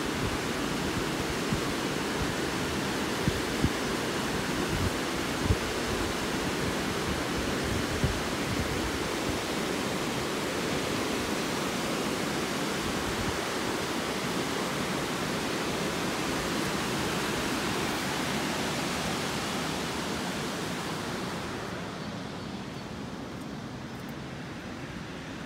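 Steady rush of the Tambre River's water pouring over a weir, with a few low wind thumps on the microphone in the first seconds. The rush grows fainter and duller near the end.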